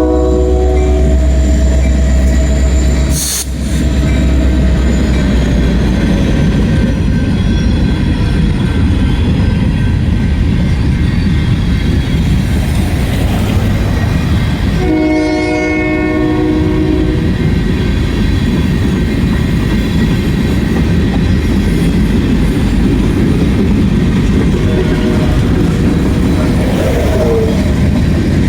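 Union Pacific freight train: the locomotive's air horn sounds a multi-note chord that ends about a second in, and a second horn blast of about two seconds comes around the middle. Between and after the blasts the train rolls past with a steady rumble and wheel clatter.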